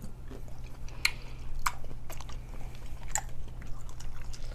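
A person chewing seafood-boil food close to the microphone, with a few sharp wet mouth clicks about a second, a second and a half, and three seconds in, over a steady low hum.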